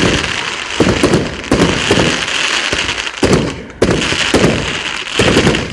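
Fireworks going off: a string of loud bangs, about one or two a second, over a steady crackling fizz.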